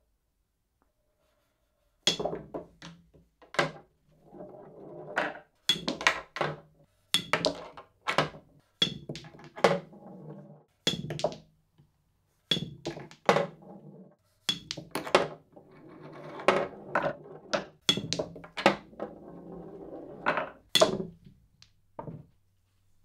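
Bar billiards balls struck with a cue: after a short silence, a long run of sharp clicks as cue meets ball and ball meets ball, knocks against the cushions and thunks as balls drop into the holes, with a low rumble of balls rolling between the strikes.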